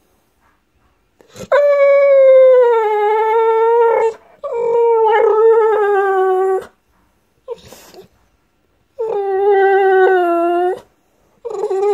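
A tri-color bully dog howls in long, drawn-out calls, each sliding slightly down in pitch. There are three long calls, a short yelp between the second and third, and a fourth call starting near the end. It is vocalizing to get its owner to play.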